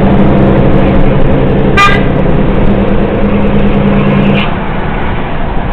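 Loud, steady motor-vehicle engine running, with one short horn toot about two seconds in.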